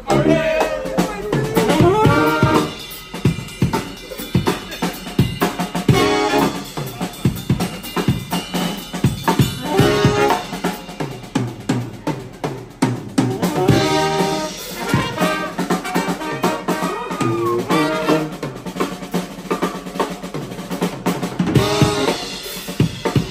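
Live brass band playing: a drum kit keeps a busy beat with snare and bass drum, and saxophone, trombone, trumpet and sousaphone come in with phrases every few seconds.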